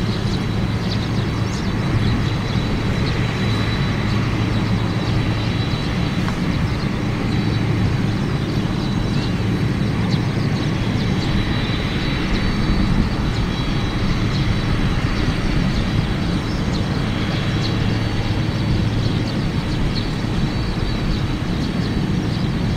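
Boeing 767 jet engines running at low taxi power: a steady rumble with a faint high whine held on one pitch.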